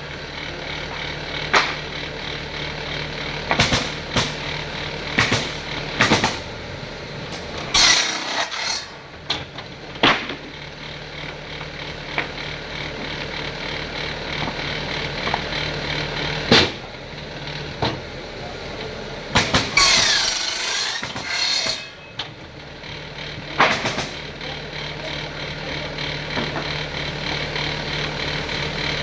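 Workshop sounds: a machine hums steadily while sharp knocks and clatters of wood and tools come at irregular intervals, a dozen or more in all. The hum drops out twice, and about twenty seconds in there are a couple of seconds of hissing, scraping noise.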